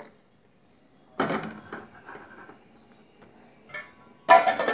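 Steel kitchen vessels clanking: a clunk about a second in, a small click, then a sharper metallic clang that rings briefly near the end.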